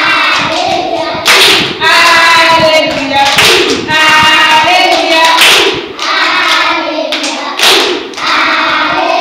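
A group of young children singing a song together in unison, holding long notes, with a louder burst about every two seconds. Hand claps and thumps go along with the singing.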